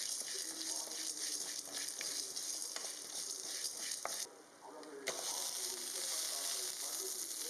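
Food frying in hot oil in a pan, with the clicks and scrapes of a spatula stirring it. The sizzle drops away for a moment about four seconds in, then comes back at full strength with a sharp knock.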